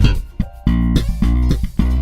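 Fodera Monarch electric bass played slap style in a funk line: sharp thumbed and popped notes, a ringing note fading into a short break about half a second in, then a run of short, punchy notes.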